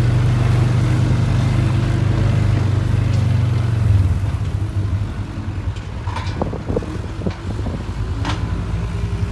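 A tractor engine running steadily, which drops away about four seconds in. A few knocks and clatters follow near the end.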